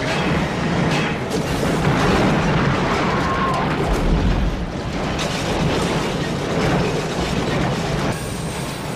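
Film soundtrack of a derailing train crashing: dense crashing noise with repeated booms and impacts, under dramatic film music.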